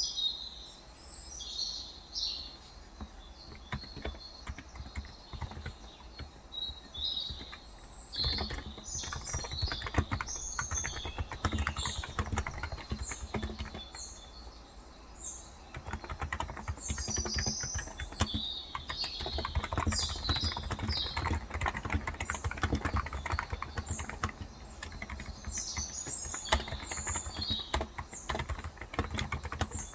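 Typing on a Cox Endeavour tenkeyless keyboard with electro-capacitive 35 g switches, keystrokes sparse at first, then a steady run from about eight seconds in with a short pause near the middle. Small birds chirp throughout.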